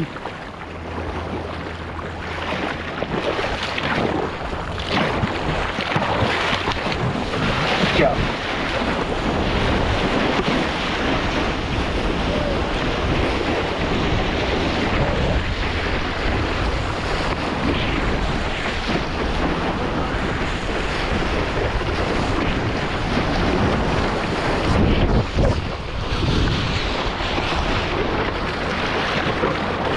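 Ocean surf and water splashing close by, with wind buffeting a helmet-mounted GoPro microphone as a steady low rumble.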